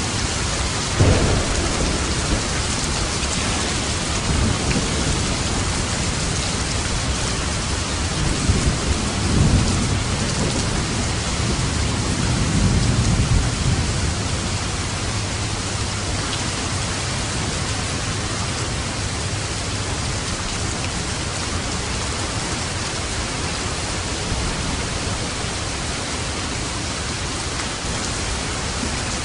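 Steady heavy rain, with low rolls of thunder rumbling about a second in and again from about eight to fourteen seconds.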